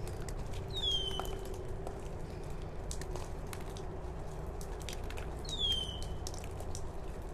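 Bonsai scissors snipping roots in small scattered clicks, over a steady low hum. A bird calls twice, about five seconds apart, each a short whistle that slides down in pitch; the calls are the loudest sounds.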